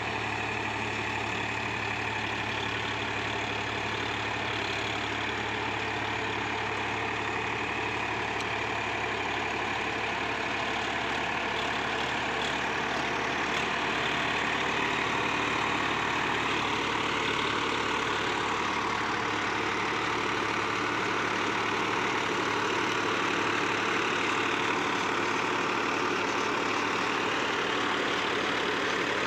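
Swaraj 963 FE tractor's diesel engine running steadily under load as it pulls a PTO-driven Landforce super seeder through a field, the seeder's rotor working the soil. The sound grows a little louder about halfway through as the tractor comes close.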